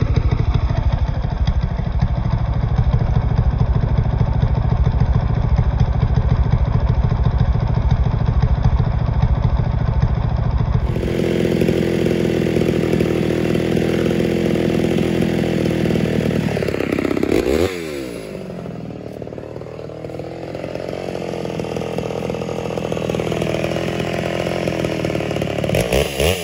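Ported Homelite Super XL Auto chainsaw's single-cylinder two-stroke engine running, mostly steady near idle. The sound changes abruptly about 11 seconds in. About two-thirds of the way through the engine note falls and gets quieter, then it starts rising again right at the end.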